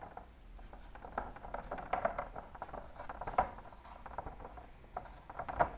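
Dry-erase marker writing on a whiteboard: a run of short, faint scratching strokes as letters and numbers are drawn.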